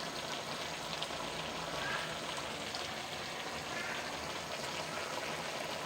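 Cauliflower and potato cooking down in a karahi with little water left, a steady bubbling sizzle.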